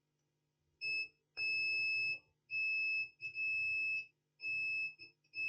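Multimeter continuity beeper sounding in stop-start beeps of uneven length, starting about a second in, as the probes touch a component. The beeping marks a short circuit, here a shorted capacitor and resistor.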